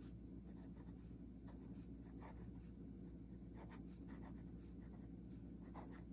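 Faint scratching of a Sailor Compass 1911 fountain pen's steel fine nib on lined paper, writing cursive letters in short irregular strokes. The nib gives only a little feedback, hardly scratchy at all.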